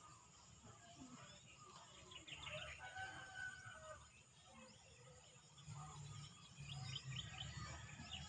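Faint outdoor bird sounds: many short chirps from small birds, with a rooster crowing.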